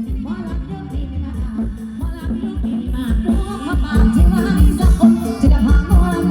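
Live band music with a steady drum beat, with a singing voice over it that comes in more strongly about three seconds in.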